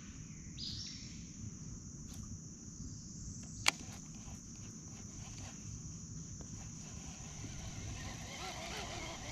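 Steady high-pitched insect drone over a low outdoor rumble, with a single sharp click a little over a third of the way in.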